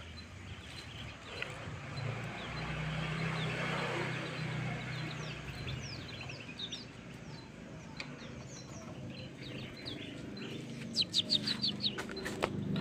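Kecial kuning, small yellow white-eyes, calling: scattered thin, high chirps that slide downward, then a quick run of louder chirps near the end.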